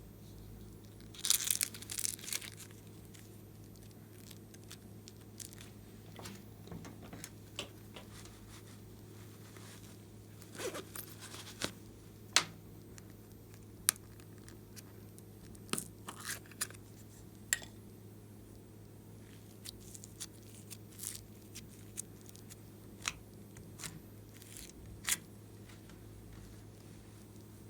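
Glossy slime being pressed and stretched by hand, crackling in a short dense burst about a second in, then giving scattered sharp pops and clicks.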